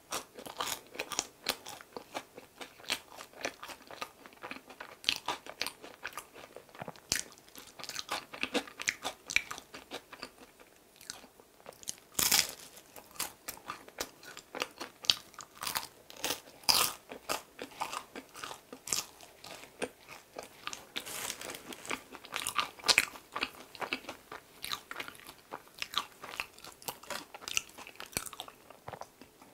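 Close-miked chewing of bread: a dense, irregular run of small crisp crunches and wet mouth clicks as a mouthful of crusty filled bread is chewed.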